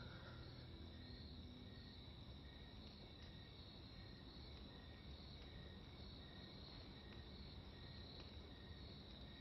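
Faint crickets chirping in a steady rhythm, about two chirps a second, over a thin high trill in an otherwise near-silent room.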